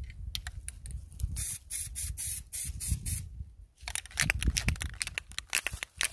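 Aerosol can of white spray lacquer being shaken by hand, the mixing ball rattling in quick strokes, in two bouts with a short pause about halfway, to mix the paint before spraying.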